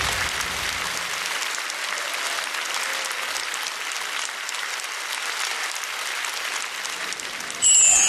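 Studio audience applauding. Near the end, a much louder high-pitched screeching sound cuts in suddenly: the start of a vocal sound imitation at the microphone.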